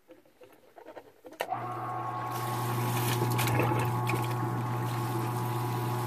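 Small submersible pump switching on with a click about a second and a half in, then running with a steady low hum and churning liquid in a bucket. It is circulating vinegar through a combi boiler's heat exchanger to descale it.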